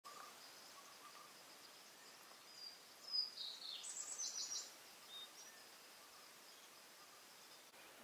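Faint natural ambience with a bird giving a quick run of high chirps, some stepping down in pitch, starting a little after three seconds in and lasting about a second and a half.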